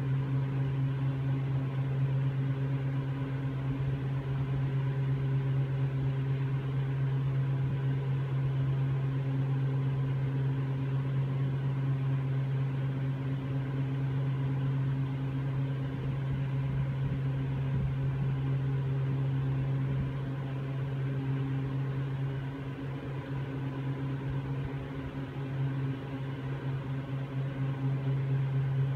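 Steady low mechanical hum heard inside an aerial ropeway cabin: one deep tone with fainter overtones over a light rushing noise, easing off slightly for a few seconds near the end.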